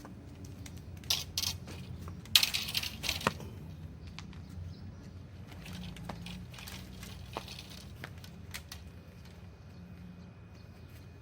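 Handling noises from antenna-building work: a few sharp clicks about a second in, a louder rustling scrape about two and a half seconds in, then scattered small taps.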